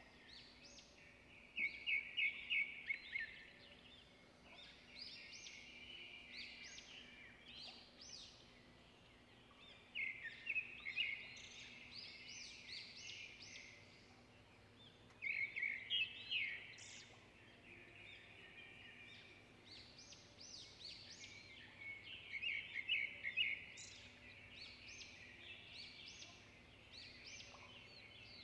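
Birds singing: every few seconds a burst of rapid, high chirping phrases, with fainter chirps in between.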